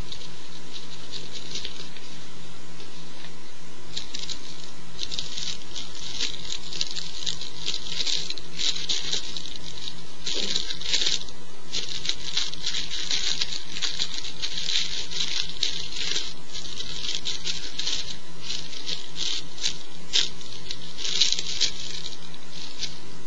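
Dry crackling and rustling from dry material being handled, coming in irregular clusters, over a steady low electrical hum.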